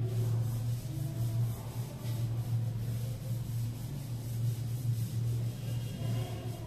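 A steady low hum with faint rubbing sounds over it.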